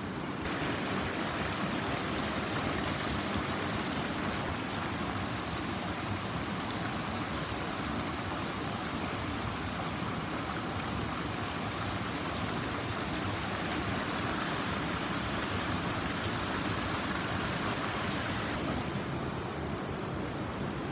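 Small mountain creek running and splashing down a rocky channel over granite boulders: a steady rushing of water. Near the end the brighter hiss falls away, leaving a softer, lower rush of water.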